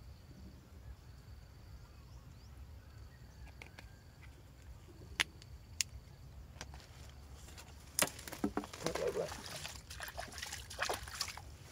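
Powdered fishing bait being wetted and stirred by hand in a bowl: wet sloshing and rustling, busiest in the last four seconds, after two sharp clicks midway.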